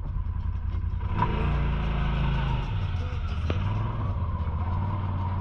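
UTV engine running, revving up about a second in and easing back to a steady run by about three seconds in.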